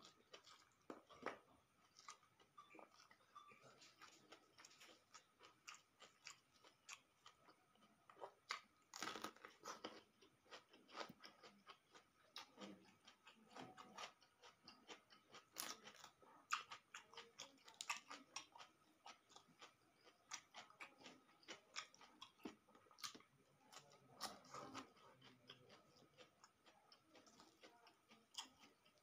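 Close-up eating sounds: chewing and crunching of rice, omelette and raw cabbage eaten by hand, as many irregular sharp crunches and mouth smacks, with the crinkle of raw cabbage leaves being torn.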